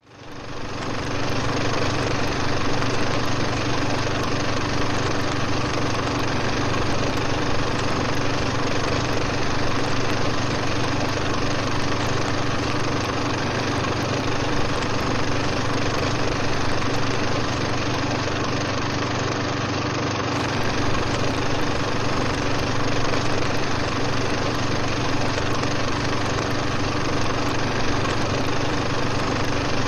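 A steady, dense drone with a strong low hum. It fades in over the first second, then holds without change.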